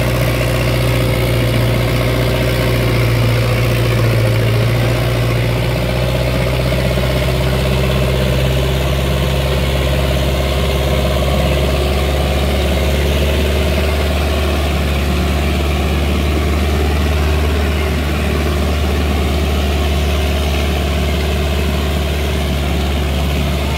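Sonalika 750 tractor's diesel engine running hard under heavy load as it drags a 22-disc harrow through the soil, a loud, steady, deep drone. Its note drops a little about halfway through.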